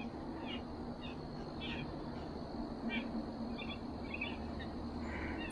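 Several blue jays chattering: short calls repeated at uneven intervals, faint.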